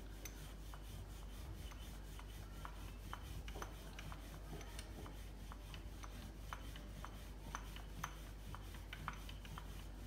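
Wooden rolling pin rolling dough out thin on a floured stone countertop: a faint, steady rubbing with light, irregular clicks, over a low steady hum.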